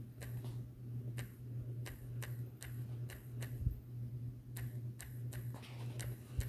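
Typing on a smartphone's on-screen keyboard: light ticks in short irregular runs over a steady low hum, with two dull bumps, one midway and one near the end.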